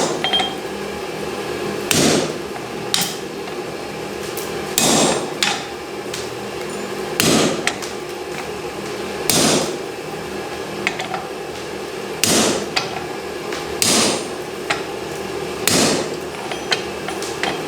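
Blacksmith's hammer striking steel on the anvil: about ten single blows spaced roughly two seconds apart, some ringing briefly, over a steady hum.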